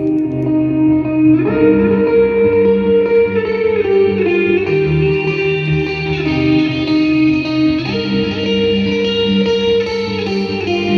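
Guitar music with held chords that change every second or two, played at full volume through a JBL Partybox 100 and a JBL Partybox On The Go linked in TWS mode.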